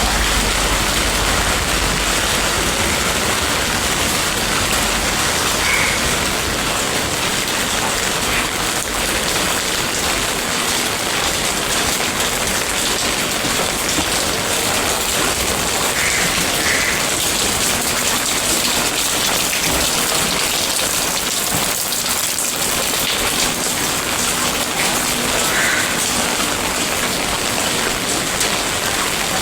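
Steady, loud rainfall pouring down without letup.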